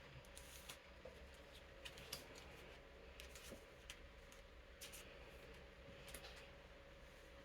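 Faint handling of playing cards and plastic card sleeves: scattered soft clicks and rustles as cards are slid into sleeves, over the steady hum of an electric fan.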